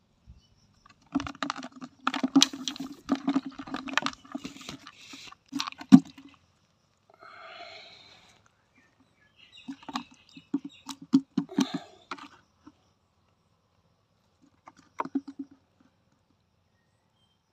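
Rapid knocking and scraping against a black plastic tub, in bursts of quick strokes: the first lasts about five seconds, a second comes after a pause of a few seconds, and a short one comes near the end.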